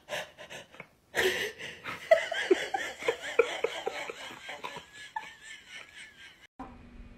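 A person laughing in a long run of short chuckles and giggles, starting about a second in and cutting off abruptly near the end.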